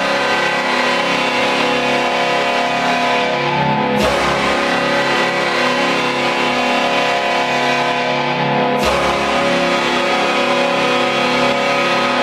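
Utah Mammoth arena goal horn blaring a steady multi-note chord over a rock goal song with guitar. Sharp crashes come about four seconds in and again near nine seconds.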